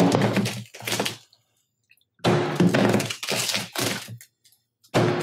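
A 3-pound hammer striking an iPhone XS Max again and again, its already cracked glass crunching and breaking under the blows. The hits come in clusters: one at the start, a longer run in the middle, and another near the end.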